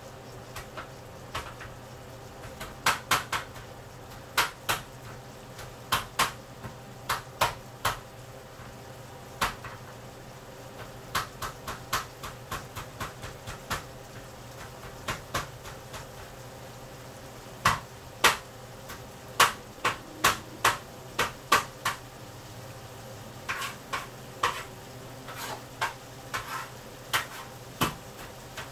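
Sliced beef frying in oil in a nonstick frying pan: an even sizzle broken by irregular sharp pops and crackles of spattering fat, sometimes several in quick succession, over a low steady hum.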